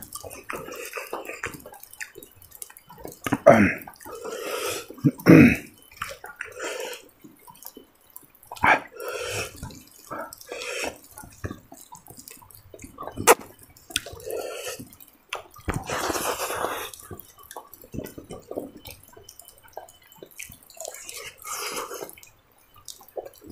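Close-up eating sounds: wet chewing and lip-smacking in short, uneven bursts while a man eats rice and fried food by hand.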